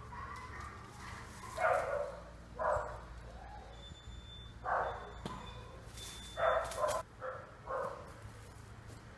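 A dog barking, about seven short separate barks spread over several seconds, two of them close together in the middle.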